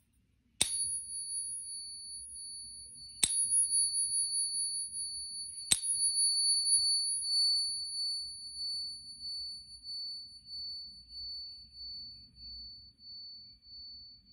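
Genuine 1 oz 22k American Gold Eagle coin held in a Pocket Pinger and tapped three times, about two and a half seconds apart. Each tap sets off a high, two-pitched ring that keeps going, pulsing as it slowly fades. The long ring is the mark of the genuine gold-silver-copper alloy.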